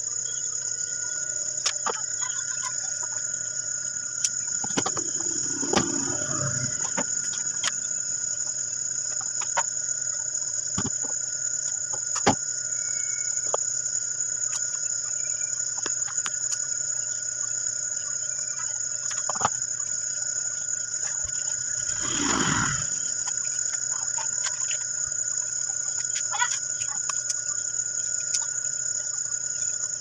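A steady high insect drone, with scattered light clicks and taps as wires are handled, and two longer sounds falling in pitch about 5 and 22 seconds in.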